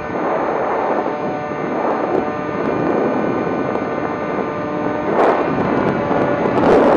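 A model seaplane's motor and propeller run at a steady pitch, heard from the camera on board, with wind rushing over the microphone. The wind noise surges briefly about five seconds in and again near the end.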